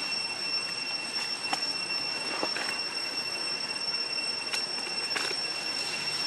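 A steady, unbroken high-pitched whine, with a few faint clicks scattered through it.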